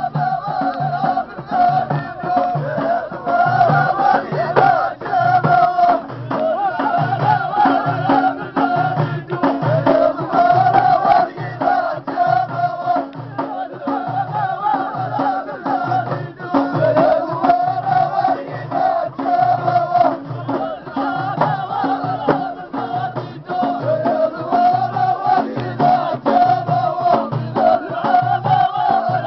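A group of men singing together in chorus over a steady beat of hand-struck frame drums, in traditional Amazigh (Berber) folk style.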